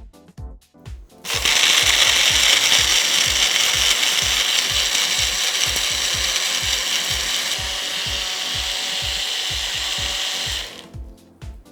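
Electric blender running for about nine seconds, grinding milk with almonds, poppy seeds, sugar and spices into a thick paste. It starts about a second in, eases slightly about two-thirds of the way through, and cuts off near the end. A steady music beat runs underneath.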